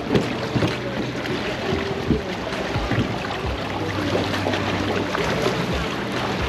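Longtail boat engine running steadily, with wind and water noise around it.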